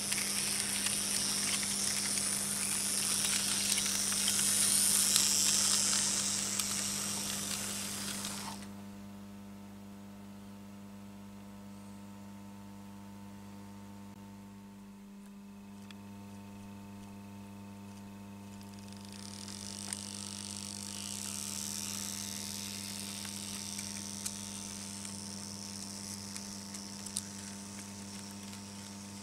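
Märklin H0 model train running on metal M-track, its motor and wheels making a hissing, clicking rattle. The rattle fades out about eight seconds in, leaving a steady electrical hum, then returns and grows again from about two-thirds of the way through.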